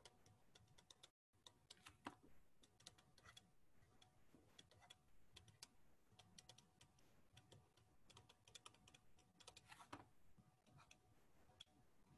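Near silence with faint, irregular clicks and taps of a stylus writing on a drawing tablet.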